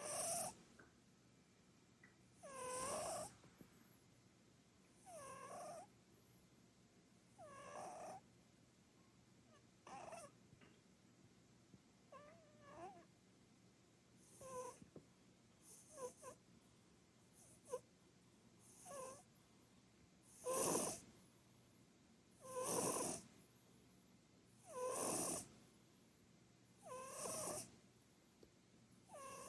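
Munchkin cat snoring in its sleep: one snoring breath about every two to two and a half seconds, each with a wavering, rasping tone. The snores grow louder from about twenty seconds in.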